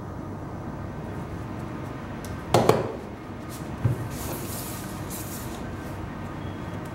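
Cardboard product box being handled on a tabletop: a loud rubbing thump partway through, a smaller knock about a second later, then a soft papery scraping as the inner box slides out of its sleeve.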